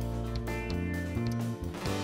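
Background music led by guitar, with bass notes changing every fraction of a second.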